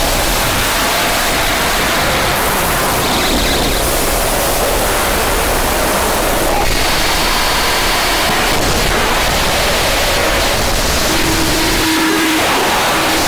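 Harsh digital noise music: a loud, dense wall of hiss-like noise with abrupt cut-up changes in texture every few seconds. Brief thin tones show through, a high one about 3 s in and a low one near the end.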